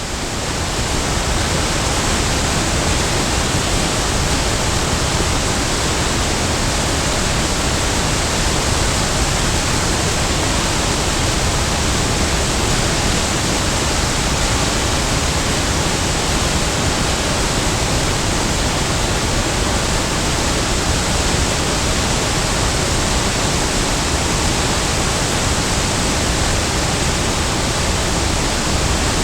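Big waterfall pouring: a steady, dense rush of falling water that rises to full level in the first second and then holds without change.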